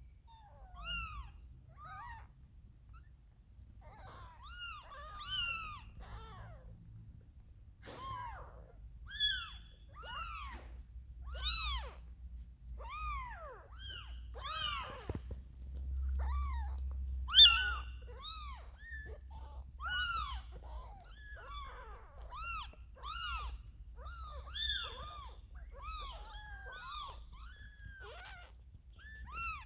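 Kittens mewing over and over: many short, high-pitched cries that rise and fall, often overlapping, with one louder cry about seventeen seconds in. A faint low rumble runs underneath.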